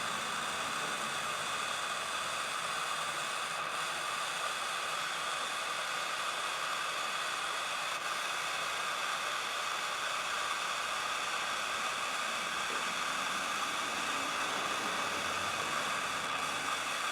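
Plumbing torch burning with a steady hissing flame, heating a radiator seam for soldering.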